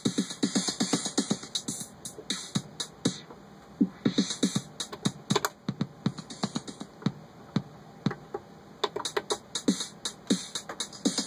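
Electronic drum-machine pattern sequenced by a homemade MIDI step sequencer: a steady run of drum hits with a hi-hat hiss that drops out and comes back several times as steps are changed.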